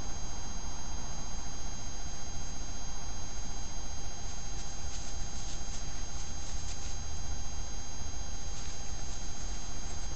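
Steady hiss and hum from a trail camera's built-in microphone and electronics, with a low rumble and several fixed high whine tones. Faint rustles come about halfway through and again near the end as an animal passes close to the camera.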